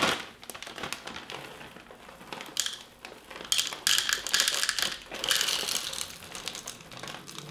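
A plastic bag of frozen chocolate chips crinkling as it is handled and tipped, with chips pouring and rattling into a measuring cup. The sound comes in several louder bursts from about two and a half seconds in.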